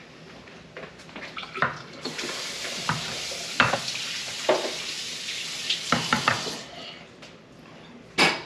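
Cold brew coffee pouring into a plastic fermenter: a steady hiss that starts about two seconds in and cuts off about two seconds before the end, with scattered knocks of containers being handled and a sharp knock near the end.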